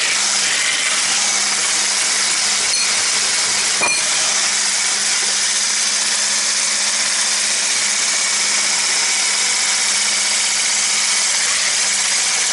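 Electric hand mixer running steadily at speed, its whisk beaters churning a thick cake batter of butter, sugar and eggs in a plastic bowl: an even motor whir with a constant low hum, and two light clicks about three and four seconds in.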